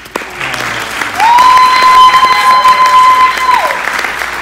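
An audience applauding in a hall. Over the clapping, one person lets out a long, loud high cheer that slides up about a second in, holds one pitch for about two and a half seconds, then falls away.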